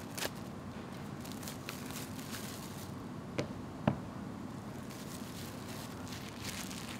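Clear plastic wrap crackling, with a few sharp taps as a box is handled, the loudest about four seconds in. Near the end the wrap is held right up to the microphone and crinkled in a quick run of crackles.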